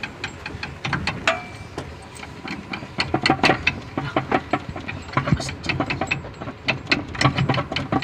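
Quick, irregular metallic clicks and knocks from hand-tool work on a Mitsubishi L300's transmission as it is being taken down, coming thicker from about three seconds in, with a brief squeak a little over a second in.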